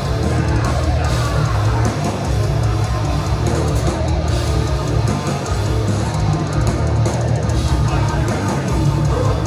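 Heavy metal band playing live and loud: distorted electric guitars over a pounding drum kit.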